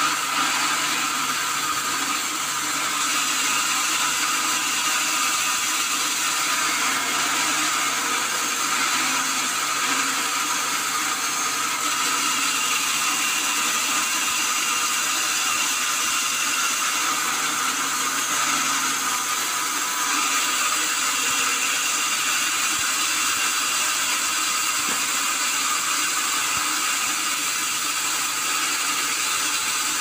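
Large band sawmill running and ripping a log, a steady high whine and hiss without a break.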